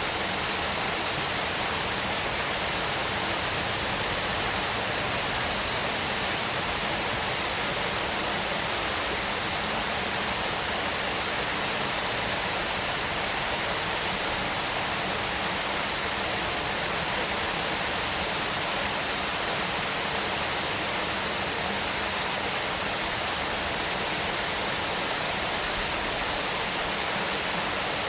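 Waterfall: falling water rushing and splashing in a steady, unbroken roar.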